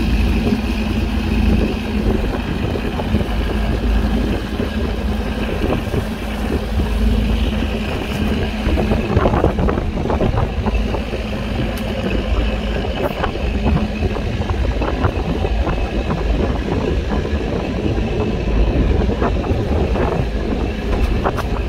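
A fishing boat's engine running steadily: a low rumble under a constant hum.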